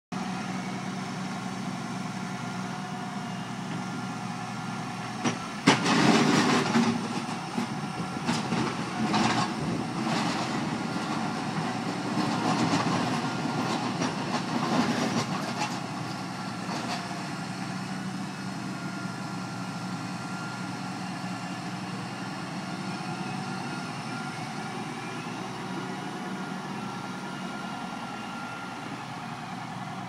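Tractor engine running steadily, with loud rough scraping and grinding bursts between about 5 and 16 seconds in, the loudest near 6 seconds, as the front loader bucket scrapes hard-packed, frozen snow off the road surface.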